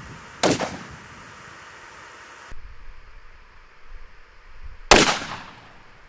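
A 40mm grenade launcher fires twice, each a single sharp report with a short ringing tail: one about half a second in and a louder one near the end.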